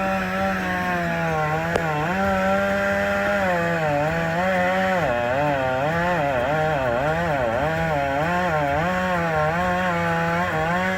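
Two-stroke chainsaw running at high revs, its pitch dipping and recovering over and over as it bogs in the cut, then stopping abruptly at the end.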